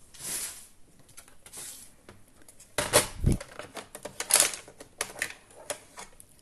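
Paper craft work on a scoring board: two soft sliding swishes of cardstock, then a knock about three seconds in and a few sharp taps and clicks as the piece is set up for folding.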